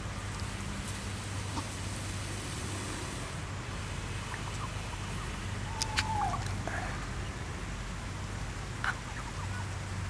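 Domestic turkeys: one short call falling in pitch about six seconds in, just after two sharp clicks, with another click near the end, over a steady low hum and hiss.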